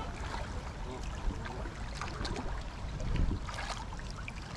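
Waterfowl on open river water: a steady low wind rumble with soft scattered splashing and a few faint, brief calls from swans and geese.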